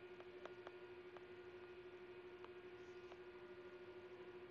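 Near silence: a faint, steady electrical hum with a few faint ticks.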